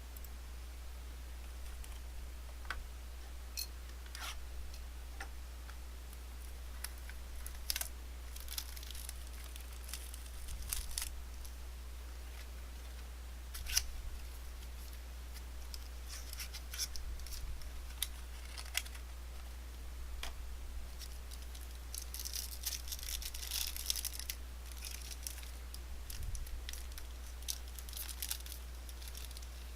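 Trading card packs and cards being handled and opened: scattered light clicks and snaps with bursts of crinkling and tearing, busiest about two-thirds of the way through, over a steady low hum.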